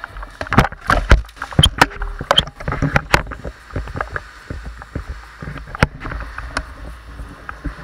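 Irregular sharp clicks and knocks as a gun-mounted camera and gear are jostled while the player moves, densest in the first three seconds and sparser after that, over a steady hiss.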